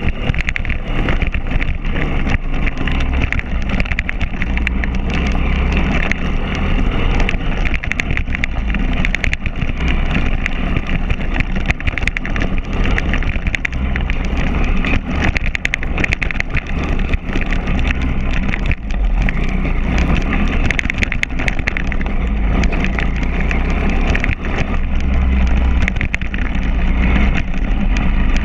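Small single-cylinder pit bike engine running and revving up and down as the bike is ridden hard, with frequent sharp rattles and knocks as it goes over the bumps.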